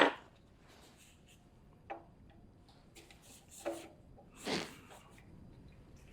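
Small hard parts being handled while searching for an O-ring: one sharp click at the start, then a few faint clicks and light clinks with short rings, and a soft rustle about two thirds of the way through.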